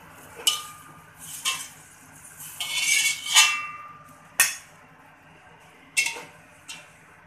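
Metal spatula scraping and clanking against a wok while scooping out the last of the stir-fried greens. There are single clinks about half a second and a second and a half in, a longer scrape around three seconds, then three more separate knocks.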